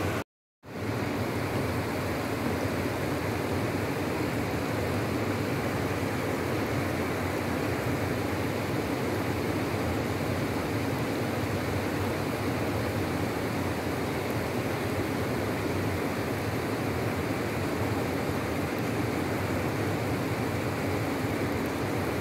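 Steady rush of river water flowing over stones, even and unbroken apart from a half-second dropout just after the start.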